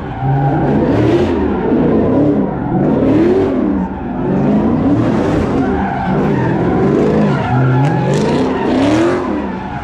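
Car engine revving up and down in repeated swells, about one every one to two seconds, with tyre screeching and hiss over it: a car spinning donuts or doing burnouts.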